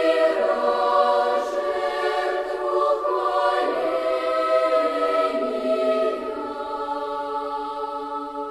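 A choir singing unaccompanied in slow, held chords, growing softer toward the end.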